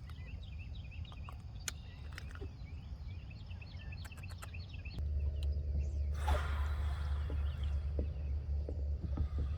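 Outdoor pond ambience: birds chirping repeatedly with a few light clicks. About halfway in, a steady low hum starts, and a brief rush of noise follows a second later.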